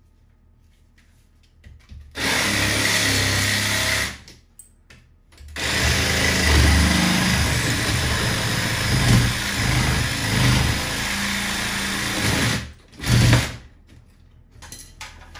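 A DeWalt cordless cutting tool running with its blade cutting into ceramic wall tile for an electrical box opening. It runs in a short burst of about two seconds, stops, then runs again for about seven seconds, its pitch wavering as it bites, and ends with one brief final burst.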